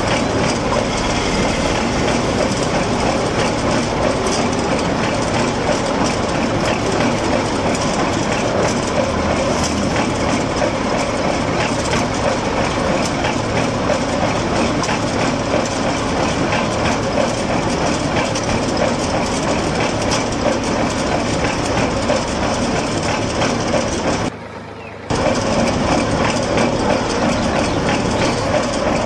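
Small electric motor of a miniature DIY oil-expeller machine running steadily with a dense, fast rattle. It cuts out briefly for under a second near the end.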